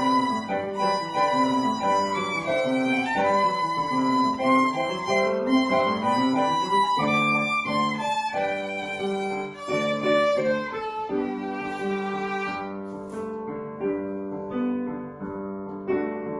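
Violin playing a melody with piano accompaniment; the music softens over the last few seconds.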